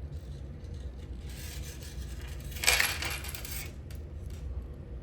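Small plastic-and-metal fishing tackle clicking and rattling as a Santee rig with fishing rattles and beads is handled and slid along the line, with the loudest clatter about two and a half seconds in.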